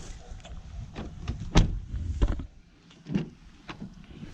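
Several sharp clicks and knocks from a car's interior fittings being handled, the loudest about a second and a half in, over a low rumble that dies away after about two seconds.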